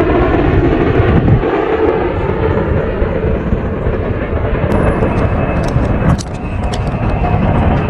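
Jet airliner landing: a loud, steady roar and rumble, dipping briefly about six seconds in, with scattered small clicks over the top in the second half.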